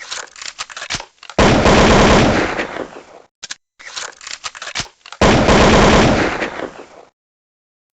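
Automatic gunfire from an AK-type rifle or machine gun: scattered shots, then a long loud burst of rapid fire about a second and a half in, more scattered shots, and a second long burst about five seconds in. Each burst tails off over a second or so, and the sound stops about a second before the end.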